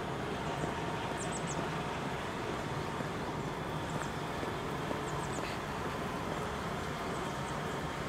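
Steady rumble of passing road traffic, with short high chirps heard three times.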